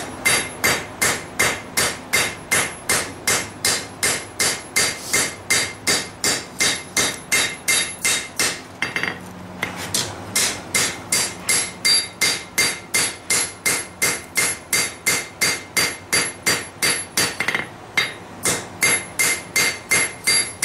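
Hand hammer striking hot lawnmower-blade steel on an anvil in a steady rhythm, about two and a half ringing blows a second with a short pause about nine seconds in: forging the edge bevel of a kukri.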